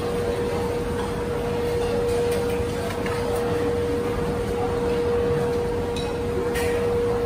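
Steady background noise of a hawker stall with a constant mid-pitched hum, and a couple of faint clicks near the end.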